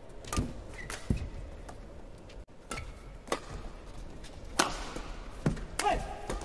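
Badminton rackets striking a shuttlecock in a quick doubles rally: sharp cracks at an uneven pace, about one every half second to a second, with short squeaks near the end.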